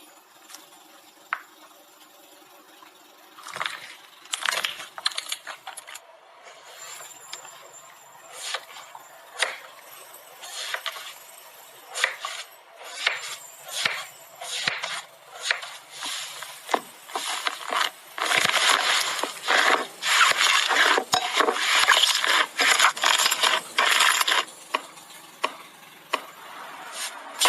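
Slime being worked by hand: a string of sticky clicks and pops, then several seconds of dense crackling about two-thirds of the way through.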